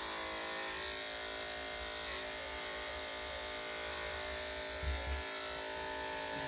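Corded electric dog clippers fitted with a #40 blade running with a steady vibrating buzz as they trim the hair between a dog's paw pads. A brief low bump sounds about five seconds in.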